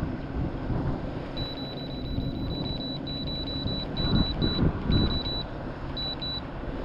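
Trolling motor's remote beeping as its power buttons are pressed over and over to step the motor's speed setting: a high-pitched electronic beep train starting about a second and a half in, breaking into shorter runs toward the end.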